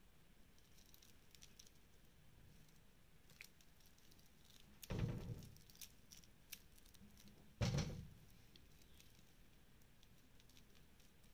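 Faint clicks of a metal link watch bracelet being handled and flexed, with two brief louder rustling bumps about five seconds in and again two and a half seconds later.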